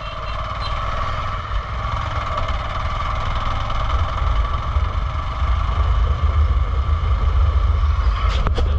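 Petrol vehicle's engine running on the road, a steady rumble that grows slowly louder.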